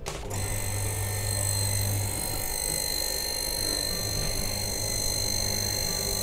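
A Shimizu PS-221BIT 200-watt shallow-well electric water pump starts up when it is plugged in and runs steadily with a low mains hum and a thin high whine. It sounds smooth. The pump is running dry with no pipes attached.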